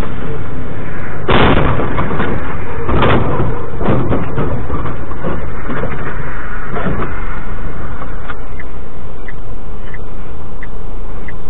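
Loud steady rumble of a truck cab on the road, broken about a second in by a heavy crash as a skidding car strikes the truck. A second bang follows a couple of seconds later, then scattered knocks and rattles over the next few seconds.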